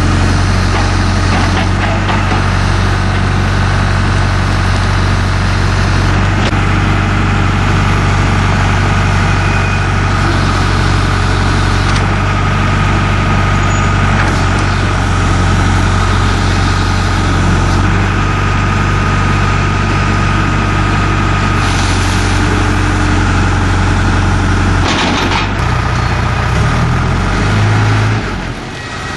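Diesel engine of a John Deere 310J backhoe loader running steadily, with a clattery mechanical noise over it; near the end the engine note steps up and down in pitch several times as the machine is worked.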